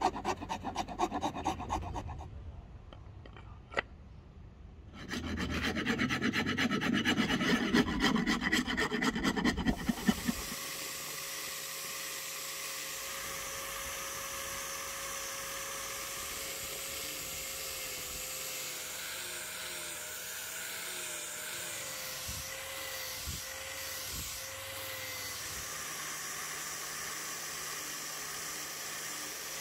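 A hand file scraping a wooden axe handle in quick, repeated back-and-forth strokes, with a pause of about three seconds. About ten seconds in, the strokes stop and a steady hiss carries on.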